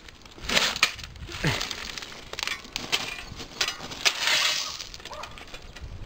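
Steel shovel blade scraping into crushed gravel and lifting it, the stones crunching and clattering, in several strokes with the loudest about half a second in and about four seconds in.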